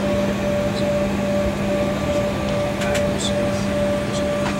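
Airliner cabin noise on the ground before departure: a steady hum with a low drone and a higher steady tone over an even rush, and a few faint light clicks.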